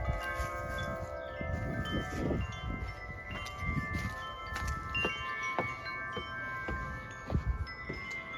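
Several tuned metal wind chimes ringing in the wind, their tubes struck at irregular moments so that many long, clear tones overlap, over a low rumble of wind on the microphone.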